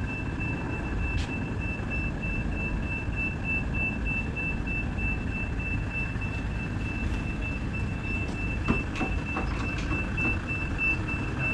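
A few light knocks and clatters of the wooden cabinet being handled, about nine seconds in, over a steady low background rumble and a continuous high pulsing trill.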